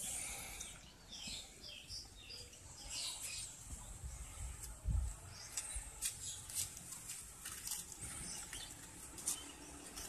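Lovebird chicks chirping in short high calls through the first few seconds, then scattered sharp ticks and a single low thump about five seconds in.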